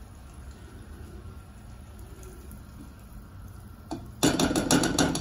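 Melted butter sizzling faintly in a saucepan on the stove, then near the end a spatula stirring it, knocking and scraping against the pot in a quick run of about six strokes.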